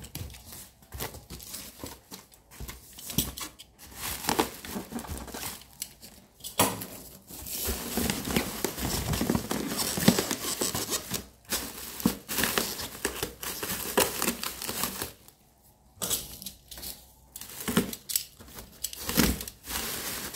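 Plastic wrap and bubble wrap crinkling and tearing in irregular bursts, with cardboard rustling, as a parcel is cut open with a box cutter and unwrapped by hand.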